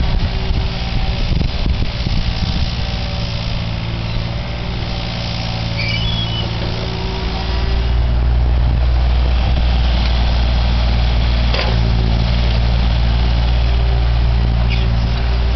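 Excavator's diesel engine running steadily, working harder and louder about halfway through. A single sharp knock comes about two-thirds of the way in.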